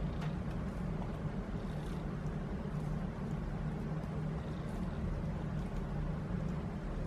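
Miele S8310 C3 Complete canister vacuum with a 2200 W motor running steadily under an airflow measurement, a constant rushing hum, with a few faint clicks.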